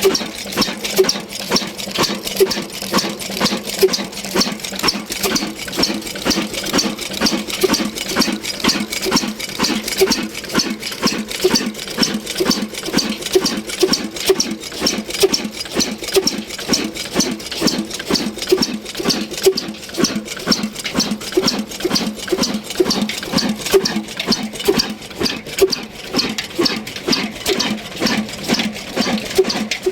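Ruston Hornsby stationary diesel oil engine running steadily, with an even, rhythmic beat that keeps up without change.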